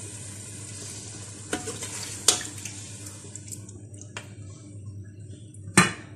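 Chicken curry sizzling and simmering in an aluminium pot with water just added, while a steel spoon stirs it. There is a steady hiss, and the spoon knocks against the pot a few times, the loudest knock near the end.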